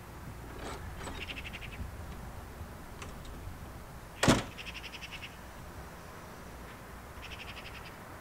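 A single loud knock about four seconds in, over three short, fast rattling calls from a bird.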